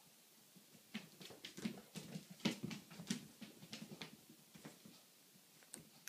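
Bengal cat's paws pattering and scrabbling on a ceramic tile floor as she spins and pounces: a quick run of taps and thumps for about three and a half seconds starting about a second in, then one more sharp tap near the end.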